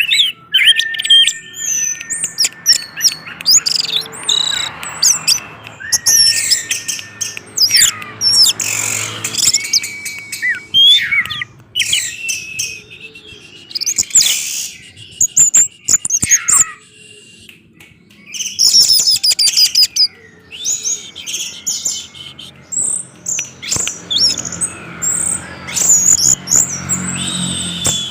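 Orange-headed thrush singing a long, varied song of loud whistled phrases, quick trills and sliding notes, broken by a few short pauses.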